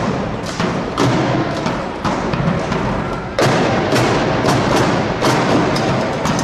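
Marching drum line playing a fast, driving cadence of rapid drum strokes with loud accented hits.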